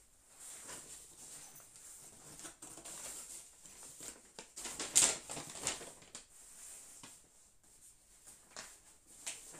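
Kraft-paper shopping bags and a fabric backpack rustling and crackling as they are handled, in a run of short irregular crinkles. The sharpest crackle comes about five seconds in.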